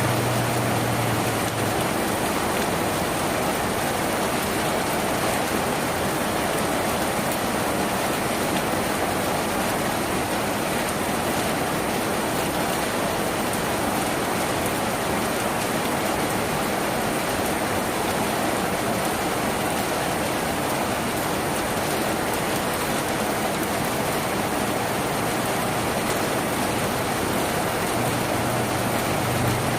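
Steady, even rain drumming on a tin roof. A low hum comes in briefly at the start and again near the end.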